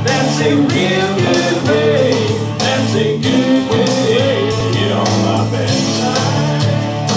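Country song: a singer over strummed guitar and a steady low accompaniment.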